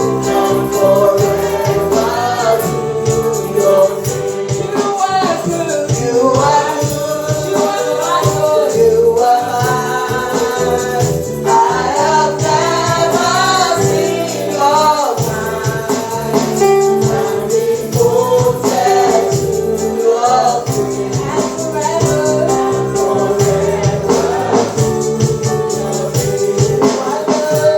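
Live gospel praise-and-worship music: a church worship band playing with singers, over a busy percussion beat.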